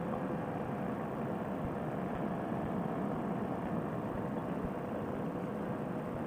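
Fresh Breeze Monster two-stroke paramotor engine and propeller droning steadily at cruise power in flight, mixed with wind rush.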